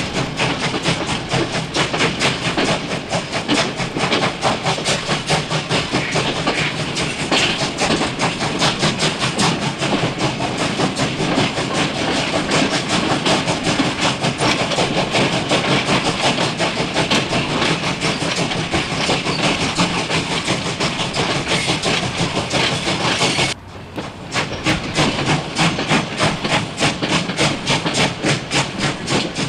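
Sound effect of a full-size steam locomotive chugging along, recorded from the train's doorway: a fast, even rhythm of chuffs and rail clatter. It drops out for a moment about three-quarters of the way through, then resumes.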